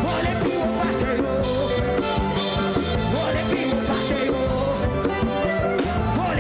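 Upbeat church band music played live, with a drum kit keeping a steady beat and a voice singing over held instrument notes.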